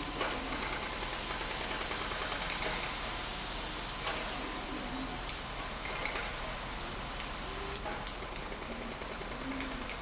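SA105 diesel railbus approaching the platform slowly, its engine running steadily, with a single sharp click about three-quarters of the way through.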